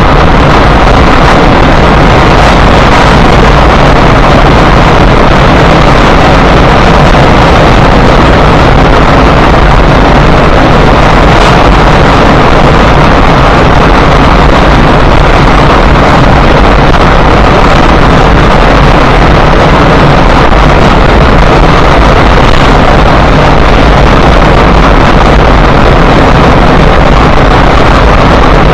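Loud, steady road and wind noise inside a car cruising at highway speed, as picked up by a dash cam's microphone, with no change in pitch or level.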